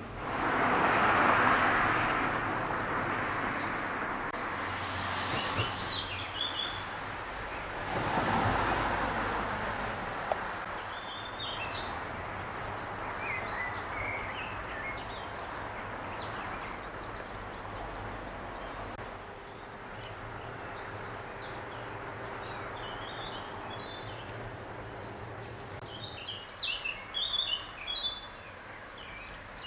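Birds chirping, in scattered short calls that grow dense and loud near the end, over a steady outdoor rushing noise. The rushing swells at the start and again about eight seconds in.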